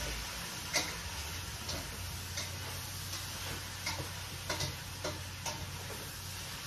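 Cooking utensil clicking and tapping against a pot on the stove at irregular intervals, roughly once or twice a second, over a steady low hiss.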